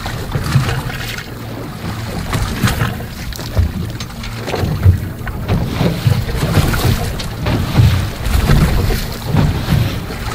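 Wind buffeting the microphone in uneven gusts, with waves washing against the hull of a small boat at sea.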